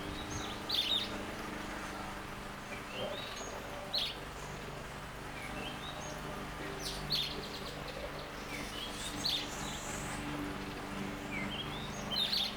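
A garden bird calling repeatedly, a short rising note followed by a sharp high chirp, about every three seconds. Under it runs the steady hiss of a bird-bath fountain's flowing water.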